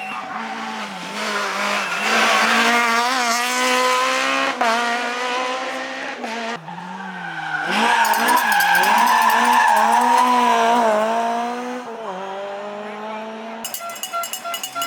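Rally car driven hard, its engine revving up and falling back in pitch several times through gear changes. About halfway through the tyres skid with a high squeal, and near the end there is a rapid crackle.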